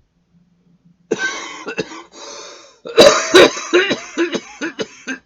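A man coughing in a fit of repeated hard coughs from about three seconds in, after a long breathy sound about a second in.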